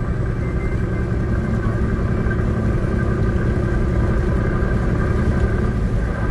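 Steady road and engine rumble inside a diesel wagon's cabin while driving, with a few faint steady high tones over it.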